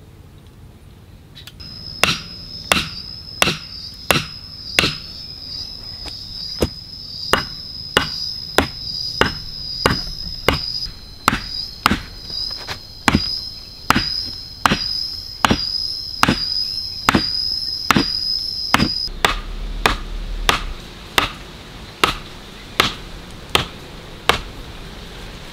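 A hand tool striking wood in steady, even chops, about one every 0.7 seconds. An insect's steady high buzz runs under the chops and stops about 19 seconds in.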